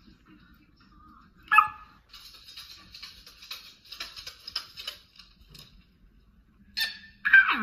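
Dog yelps and barks: one sharp yelp about a second and a half in, softer scattered rustling in the middle, and two loud barks near the end, the last sliding down in pitch.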